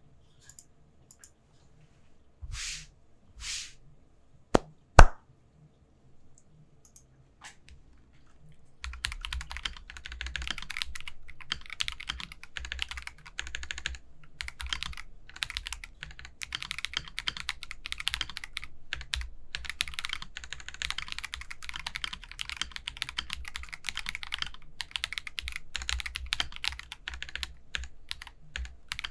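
Typing on an Akko 5075B Plus mechanical keyboard with Akko CS Creamy Yellow linear switches. After a few separate clicks and knocks, the sharpest two about five seconds in, steady fast typing starts about nine seconds in.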